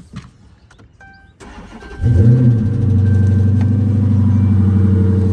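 Dodge Charger's 5.7-litre HEMI V8 cranking and catching about two seconds in, flaring up briefly, then settling into a steady idle.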